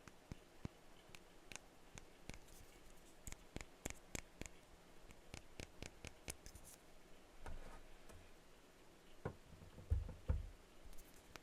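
Light, irregular tapping on perfume bottles: many quick, sharp taps, with two duller, heavier knocks about ten seconds in.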